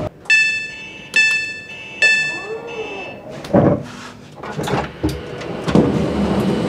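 Three electronic beeps from a Class 390 Pendolino's passenger door warning as the train stands at the platform, followed by several thuds and clunks about a second apart.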